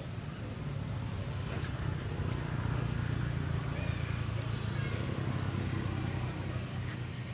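A low, steady motor hum, with a few faint, short, high squeaks about two seconds in.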